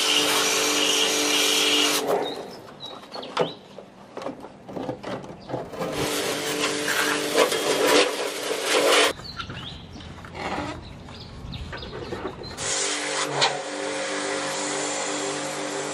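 High-pressure washer spraying water onto plastic air-conditioner parts: a steady pump hum with the hiss of the spray, in three spells that stop abruptly. In the pauses between them there are light knocks and clatter as the parts are handled.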